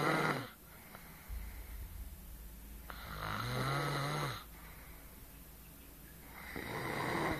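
A woman snoring in her sleep: three long snores, each lasting a second or so, coming about every three and a half seconds, with quieter breathing in between.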